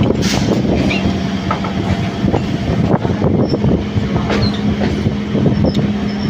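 Kolkata suburban electric local train running at speed, heard from an open doorway of the coach. The coach rumbles and rattles, the wheels click repeatedly over the rails, and a steady low hum runs underneath.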